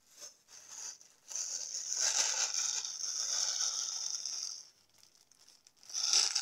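Plastic packaging crinkling and rustling as it is handled and opened. One long stretch runs from about a second in to nearly five seconds, and a shorter one comes near the end.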